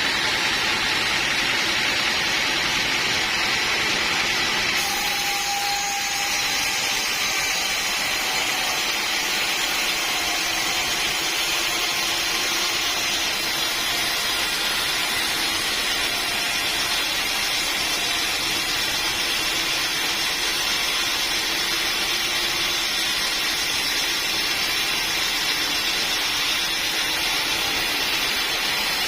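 Sawmill saw running steadily, a loud even hiss with faint whining tones, its character shifting slightly about five seconds in.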